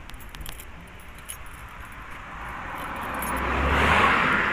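A vehicle passing on the road: its rushing noise and low rumble swell to a peak about four seconds in and then start to fade. Light clicks and rattles of handling come before it.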